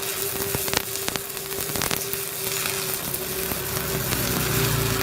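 Stick (arc) welding: the arc of a 3.2 mm electrode on 10 mm steel plate crackling and sizzling steadily, with scattered sharp pops. The arc holds without breaking as the bead is run.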